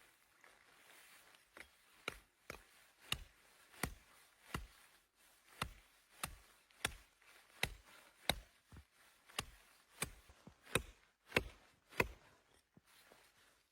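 Repeated sharp strikes of a tool on wood, about two a second in an even rhythm, beginning about a second and a half in.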